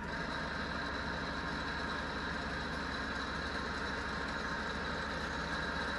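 Falconi radial drill's powered arm elevation running steadily as the arm is lowered on the column, a steady machine hum with a few fixed whining tones that comes in at the very start.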